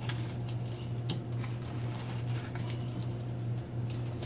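Pizza cutter wheel rolling through a crisp fried tortilla with crunchy burnt cheese and pepperoni, giving irregular crisp crunches and clicks. A steady low hum runs underneath.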